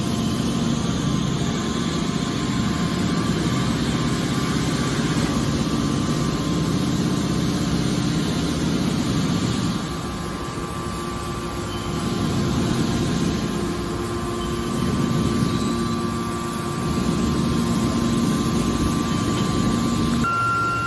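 A scrap metal baler shear's hydraulic power unit running steadily, a low hum with a faint constant whine above it; the hum shifts in pitch and level a few times.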